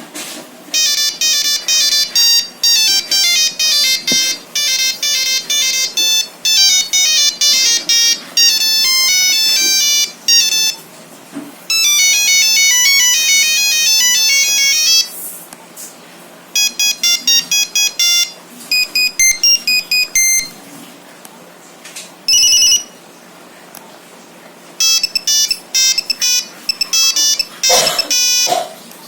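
Nokia 3310 monophonic ringtones playing one tune after another: high, thin beeping melodies of quick single notes, with short pauses between tunes. A brief knock near the end.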